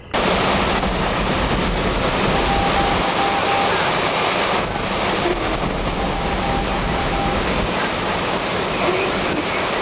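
Severe thunderstorm wind blowing hard: a loud, steady rushing noise that starts abruptly and holds throughout.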